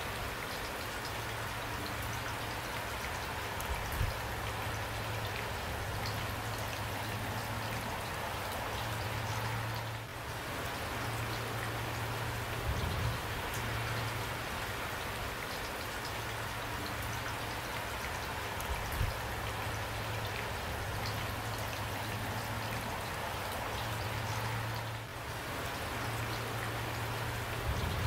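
Steady rain falling, an even hiss of many drops, with a few dull low thumps now and then.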